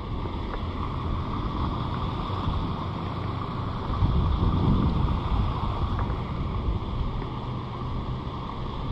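Steady rushing noise of flowing river water, with wind on the action camera's microphone. It swells briefly about four seconds in.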